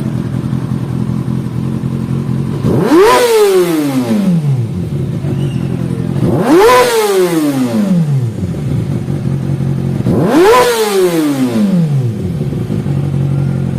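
Kawasaki ZX-6R inline-four motorcycle engine idling and blipped three times, each rev climbing sharply and then winding back down to idle over about a second and a half.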